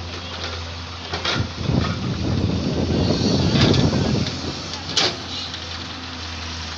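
Samsung excavator's diesel engine running with a steady low hum. From about a second in, a louder rough rumble lasts about three seconds, and a single sharp clank comes near five seconds.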